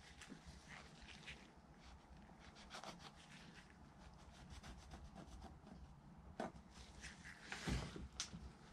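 Faint rubbing and handling noises as a raccoon pelt on a wooden stretching board is trimmed by hand, with a few soft knocks near the end.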